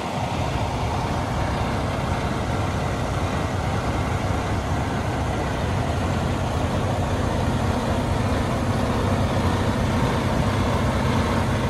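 Western Star semi truck's diesel engine idling with a steady low rumble that grows slightly louder as it is approached.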